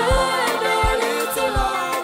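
Gospel choir song: several voices singing in harmony over a backing track with a deep bass beat.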